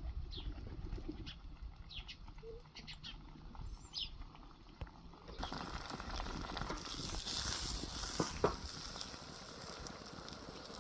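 Birds chirping in short high calls; about halfway through a dense crackling hiss from cooking over a wood fire comes in abruptly and runs on.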